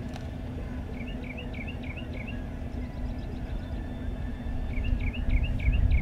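A songbird sings a short phrase of about six quick repeated notes, twice, some four seconds apart, over a steady low rumble that grows louder near the end.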